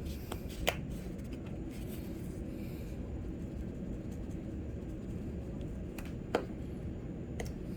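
Quiet kitchen handling over a steady low hum: a few light clicks and taps of containers and utensils and a soft scratchy rubbing, as seasoning is added to a bowl of sauce.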